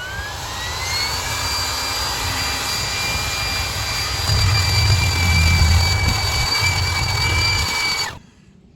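A motor spinning up with a rising whine that settles into a steady high tone, running loudly over a low rumble, then cutting off sharply near the end.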